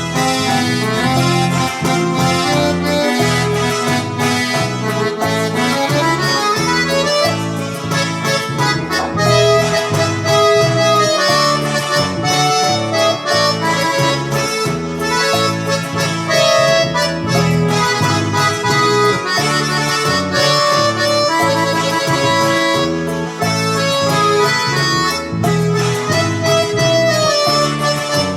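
Instrumental music played on an electronic keyboard: a reedy, accordion-like lead melody over a pulsing bass and chord accompaniment.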